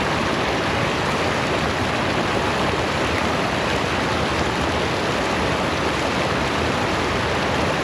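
Steady rush of water pouring over a small waterfall into a stream.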